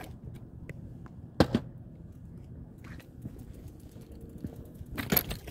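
Phone being handled in the dark: scattered clicks and knocks over a low rumble, the sharpest knock about a second and a half in, and a cluster of rubbing and rustling near the end.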